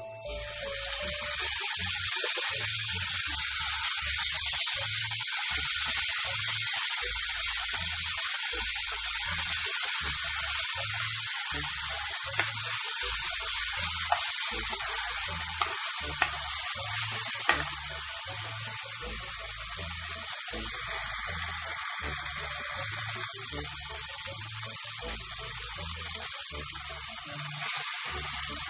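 Food sizzling in hot oil in a cooking pot, starting suddenly as it goes into the pan and then frying steadily. A few light clicks, like a spoon touching the pan, come through the middle.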